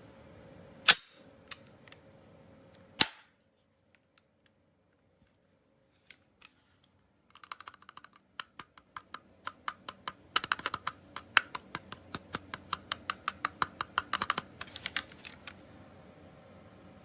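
Two sharp shots from a spring-powered airsoft pistol, about two seconds apart, followed after a silent gap by a long run of quick light plastic clicks, several a second.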